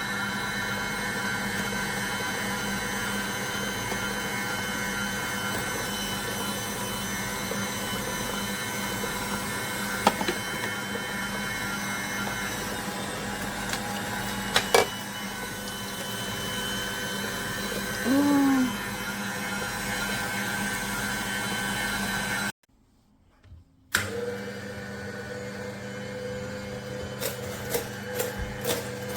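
Cold-press slow juicer's motor running with a steady hum and whine, a couple of sharp clicks and a short squeak partway through. The sound cuts off abruptly about three-quarters of the way in, and after a brief silence a different, lower hum returns with scattered clicks.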